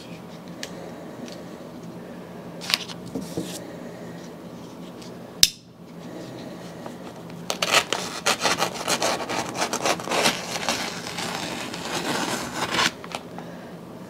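Thick paper vacuum cleaner bag, packed with dirt, being opened along its top: a few sharp clicks, then about five seconds of rapid scratchy rasping of the paper.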